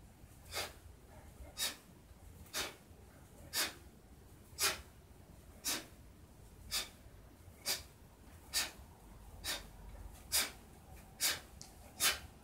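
A man's sharp, forceful breaths out, about one a second, each one timed with a push of the palm in a Tai Chi warm-up exercise.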